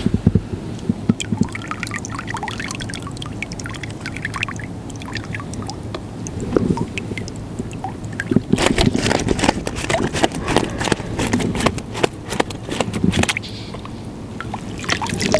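Rustling and crackling from handling a crinkly bag of fishing gear, with a dense run of sharp crackles about halfway through.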